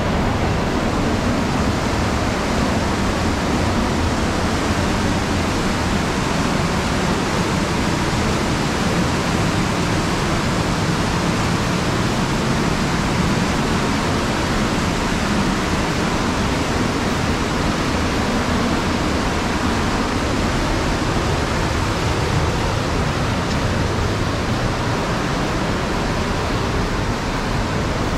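Steady rushing of a fast mountain river running white over rocks, an even roar with no breaks.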